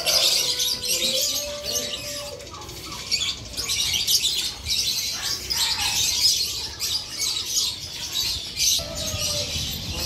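Many caged birds chirping and twittering at once: a dense chorus of overlapping high, quick calls.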